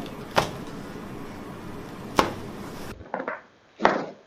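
Two sharp cracks about two seconds apart from a chiropractic adjustment of the back. Near the end come two shorter, duller bursts.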